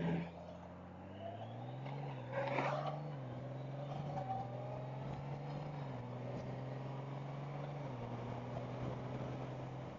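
Motorcycle engine running on the move, its pitch climbing over the first couple of seconds and then stepping up and down several times as engine speed changes.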